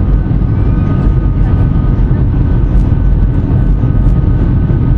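Cabin noise of a Boeing 757-200 airliner in flight, heard from a window seat over the wing: a loud, steady engine and airflow rumble with a faint constant whine on top.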